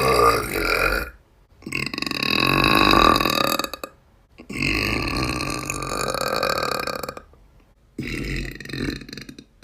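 A girl burping loudly. The end of one burp runs into the first second, then come three long, drawn-out burps of about two seconds each, with short pauses between them.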